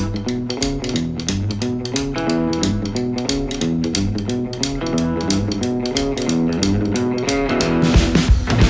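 Background music with guitar and bass playing a steady rhythm, getting louder near the end.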